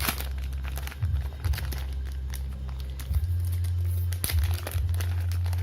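Plastic snack packaging crinkling and rustling in irregular crackles as it is opened and handled, over a steady low hum.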